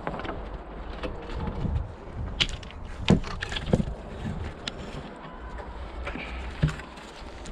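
Scattered sharp knocks and clicks, the loudest about three seconds in, over a low rumble of wind on the microphone.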